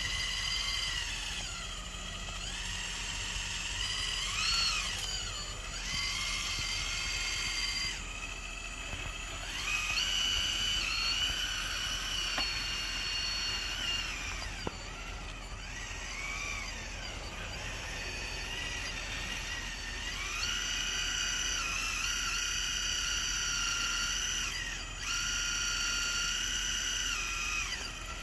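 Electric drive and hydraulic motors of an RC scale wheel loader whining as it works. The high whine glides up and down in pitch as the motors speed up and slow down, and holds steady for stretches of a few seconds in between.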